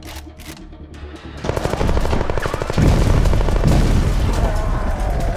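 Automatic rifle firing continuously in rapid fire, beginning about a second and a half in, with a deep rumble joining beneath it about three seconds in.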